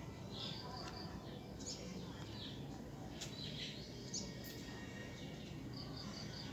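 Small birds chirping in short high calls here and there, with a quick run of about four notes near the end, over a steady low background rumble.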